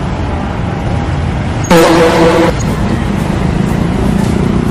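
Steady rumble of city street traffic, with one loud, flat-pitched blast, most likely a vehicle horn, lasting under a second about two seconds in.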